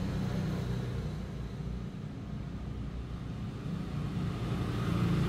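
Steady low background rumble, growing a little louder near the end.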